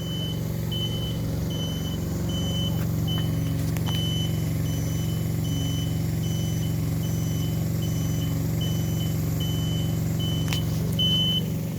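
Spider lift's engine running steadily while its motion alarm beeps about twice a second, the warning that the lift is moving.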